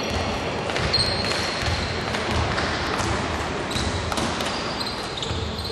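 A basketball being dribbled on a hardwood gym floor, bouncing about once every three-quarters of a second, with sneakers squeaking on the court.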